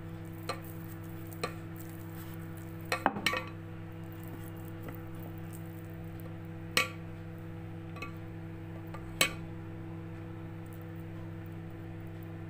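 Rolling pin working naan dough on a wooden board, with a few sharp knocks and clinks as it strikes the board, a quick cluster about three seconds in and single ones later, over a steady low hum.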